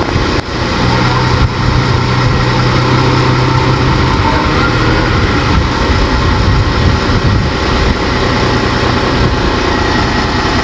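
Large diesel engine of heavy machinery running steadily, with a couple of sharp knocks in the first two seconds.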